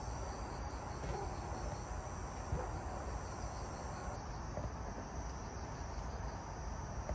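Crickets chirping steadily in the background.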